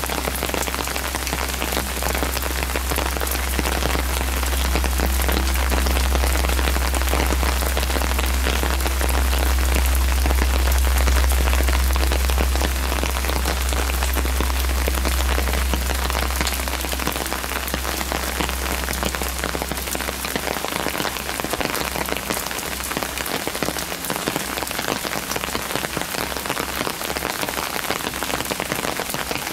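Rain falling steadily on stone paving and steps: a dense, even hiss with close drops ticking. A deep low rumble underneath swells through the middle and dies away about two-thirds of the way through.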